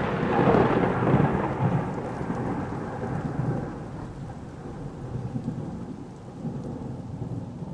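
A long, noisy rumble fading away steadily over several seconds, the tail of a sudden loud boom just before.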